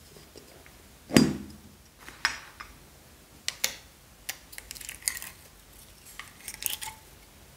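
A small round smiley-face slime container being handled and opened: a sharp knock about a second in, then scattered clicks and light taps of the lid and rim, growing busier near the end as the green slime with foam beads is pulled out of it.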